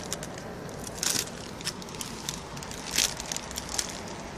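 Thin clear plastic sheeting crinkling and crackling as it is handled and pressed against a railing, with two louder rustles about a second in and at about three seconds.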